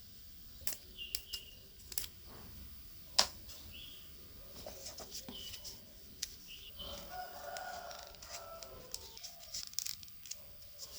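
Scattered sharp clicks and snips of hand work on cardboard, the loudest about three seconds in, with chickens clucking and calling in the background.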